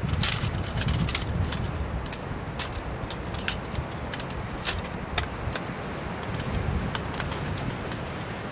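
Light clicks and clinks from a compact folding trekking table being unfolded and its panels fitted together, a quick cluster at first and then scattered single clicks. A steady low rumble runs underneath.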